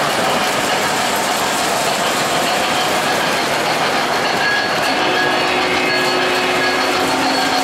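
O-gauge tinplate model trains running on three-rail track: a steady rumble of wheels and motors. About five seconds in, a steady chord of several tones joins and holds.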